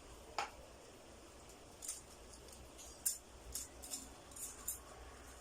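Hard plastic parts of a battery grass trimmer clicking and knocking as they are handled and fitted together, about seven short sharp clicks at irregular intervals.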